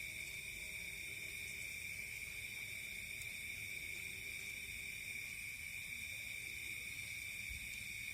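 Steady high-pitched background drone, constant throughout, with no distinct events.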